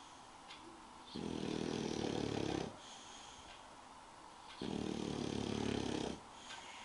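English bulldog snoring: two long snores, each about a second and a half, about three and a half seconds apart, with quieter breathing between them. Snoring of this kind is typical of the breed's short, flat muzzle.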